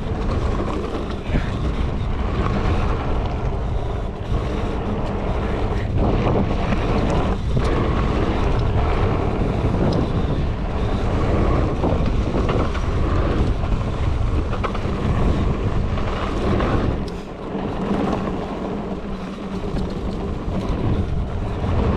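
Mountain bike riding fast down a machine-built dirt trail. Wind rushes over the camera microphone, with tyre noise and short knocks over bumps. The wind rush eases briefly about two-thirds of the way through.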